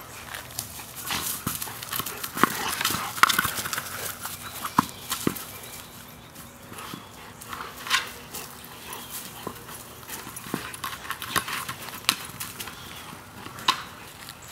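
Young Rottweiler pushing and biting a hard plastic Jolly Ball across grass: irregular knocks and clacks of teeth and snout on the ball, busiest in the first few seconds.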